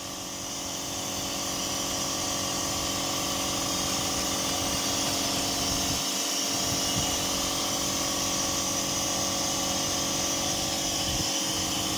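Ardmel ultrasonic welding sewing machine running as it fuses a fabric seam without thread: a steady hum with a high hiss, building up over the first couple of seconds and then holding even.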